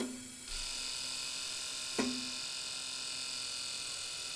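Toyota LandCruiser 200 Series ABS actuator running its electric pump and valves in the Techstream air-bleed routine: a steady motor buzz with a click as it starts and another about two seconds in.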